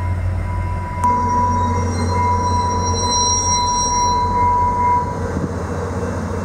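VIA Rail F40PH diesel locomotive and passenger cars rolling into the station, with a steady low engine rumble. High, steady wheel squeals rise over it in the middle and fade near the end.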